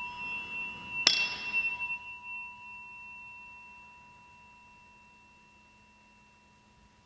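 Bell-like chime from a pop song's intro, struck about a second in and ringing on with a pure, steady tone that slowly fades away.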